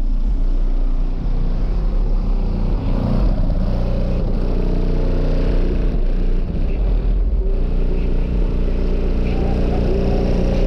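A car audio system playing bass-heavy music very loudly through four Pride 15-inch subwoofers in a sixth-order enclosure. Deep, sustained low bass notes dominate and shift in pitch every few seconds.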